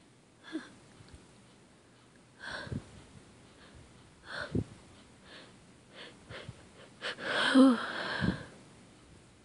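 A woman's short gasping in-breaths as a sneeze builds and she tries to hold it back, then a full voiced sneeze about three-quarters of the way through, the loudest sound.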